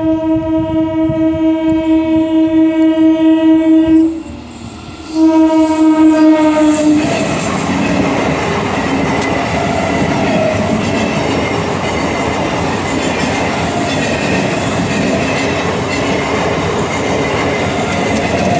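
Electric multiple-unit suburban train sounding its horn in two long blasts, the second sagging in pitch as it ends. Then the coaches rumble and clatter past over the rails.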